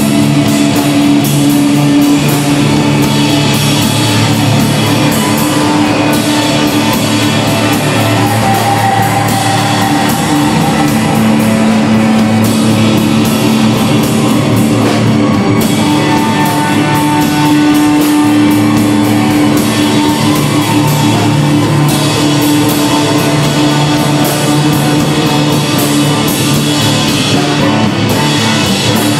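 Loud live improvised band jam: drums, electric guitar, bass and electronic loops playing together over long held droning notes.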